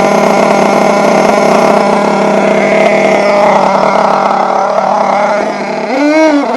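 Nitro RC truck's .28 glow engine running loudly at a steady high pitch; near the end the pitch dips, then wavers and climbs as the throttle is worked.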